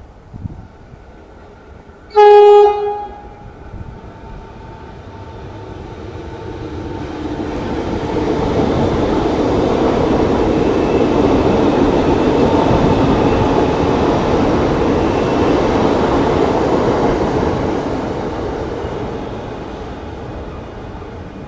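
Melbourne Metro electric suburban train sounding one short horn blast about two seconds in, the loudest sound here. Then a train's running noise and wheels on the rails build up, hold for several seconds as it runs past the platform, and fade toward the end.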